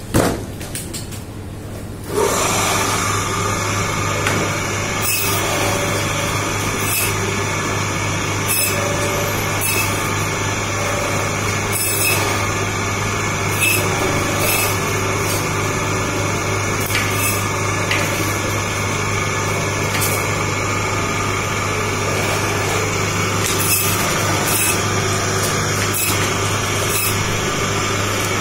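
A sharp knock, then about two seconds in a butcher's electric meat band saw starts up and runs steadily with a constant hum. Short louder strokes come every second or two as pieces of meat are fed through the blade.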